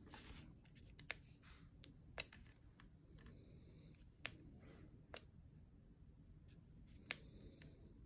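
Scattered sharp clicks, about five loud ones and a few fainter, over a low steady hum: buttons being pressed and the body handled on a Zhiyun Smooth 4 smartphone gimbal that will not turn on.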